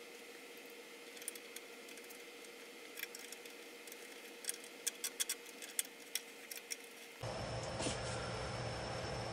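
Faint, scattered light clicks and taps of hands and tools tightening the mounting bolts of a carburetor on a small Briggs & Stratton engine, over a faint steady hiss. Near the end a louder steady low hum takes over.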